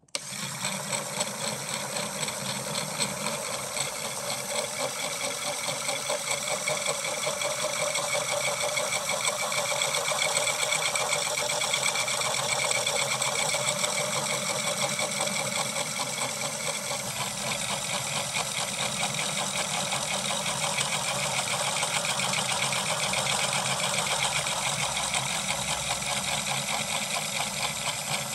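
LEGO Power Functions electric motor switched on and running steadily, spinning the rubber-tyred wheels against the turning disc of a LEGO Technic disc CVT: a steady whirring whine with a fast buzzy rattle from the plastic gearing. It starts abruptly and grows a little brighter about halfway through.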